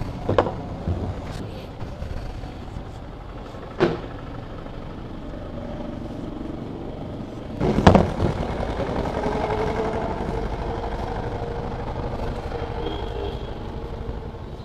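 Roadside traffic noise: vehicles running by with a steady low rumble, broken by a few sharp knocks, the loudest about eight seconds in, after which an engine hums steadily.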